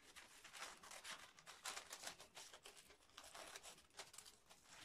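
Faint snips of scissors cutting through paper, with the crisp rustle of the paper sheet being handled.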